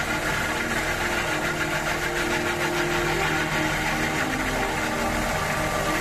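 Stationary engine of a rail-mounted laterite stone cutting machine running steadily, belt-driving the cutting blades, with the grinding hiss of the blades working the laterite rock.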